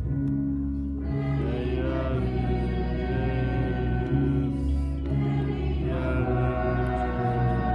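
Choral music: voices singing long, slow, held notes that glide from one pitch to the next, over a low steady bass.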